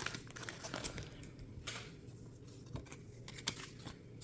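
Faint rustling and a few light clicks of trading cards and a foil booster-pack wrapper being handled.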